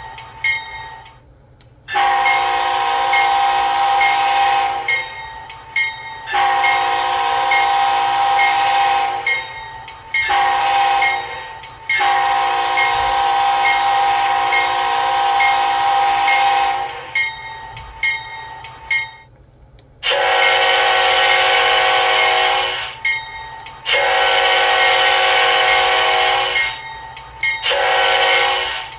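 Nathan K5HL five-chime locomotive air horns (late versions) blowing the grade-crossing pattern: long, long, short, long. The second horn comes in about twenty seconds in with a lower, fuller chord and gives two long blasts and a short one. A steady regular ringing, likely a locomotive bell, runs underneath.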